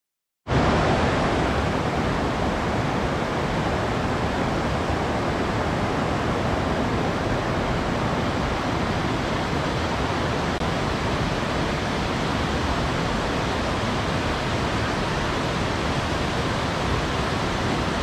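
Steady rushing of falling water from a small cascade pouring into a pool. It starts suddenly about half a second in and stays even throughout.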